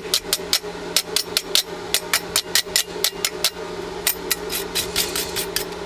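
Rapid, even hammer taps on steel plate, about five or six blows a second, over a steady hum.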